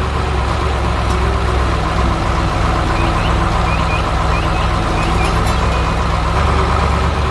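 Heavy truck engine sound effect running steadily with a low, even hum. A few faint short high chirps come in the middle.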